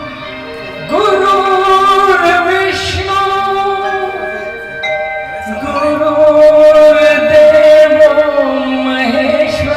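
Instrumental introduction of a Hindi film song's karaoke backing track: held melody notes over a steady sustained tone. It gets louder about a second in, dips briefly near the middle, then swells again.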